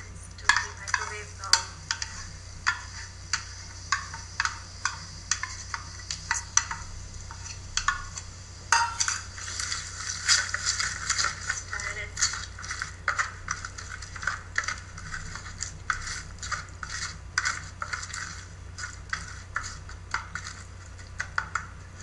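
Plastic spatula scraping thick coconut chutney out of a steel bowl and stirring it into the tempering in a plastic bowl. The scrapes and light clicks come in a continuous, irregular run.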